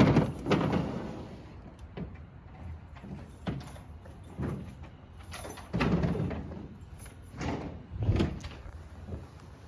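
Suitcases being loaded into the bed of a pickup truck: a series of irregular thumps and bangs.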